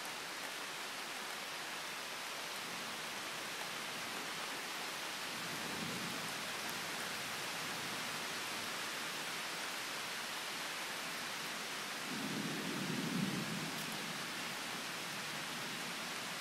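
Steady rain hiss, with two low rumbles of thunder: a faint one about six seconds in and a louder one that swells and fades about twelve to fourteen seconds in.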